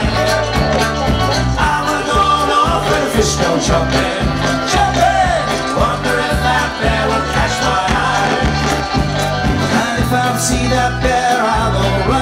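Live amplified folk-rock band playing the song, with a bass line moving under guitars and drums keeping a steady beat.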